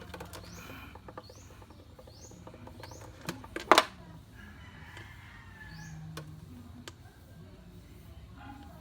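Repeated short, high, rising chirps of a small bird, with scattered sharp clicks and one loud click about three and a half seconds in.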